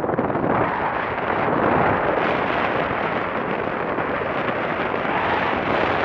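Wind buffeting an action camera's microphone in a steady, rough rush, mixed with the wash of breaking surf around the horse's legs.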